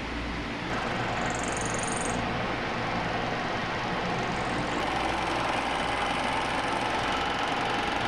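Bridgeport milling machine running steadily, with a short high-pitched whine about a second and a half in.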